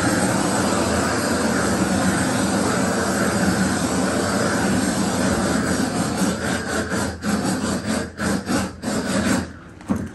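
Propane roofing torch burning at full flame, a steady rush of gas and fire as it heats torch-on modified bitumen membrane. From about six seconds in the sound breaks into rapid dips as the torch is swept. It drops off sharply near the end, when the torch is set down at low flame.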